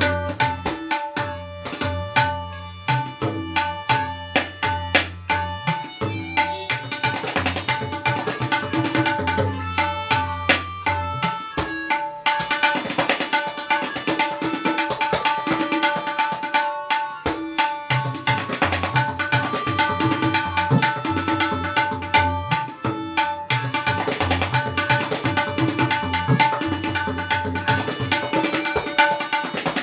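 Tabla solo: fast, dense strokes on the tabla pair, with the bayan's deep ringing bass strokes sustained through about the first twelve seconds and then mostly dropping away, leaving the brighter ringing strokes of the dayan.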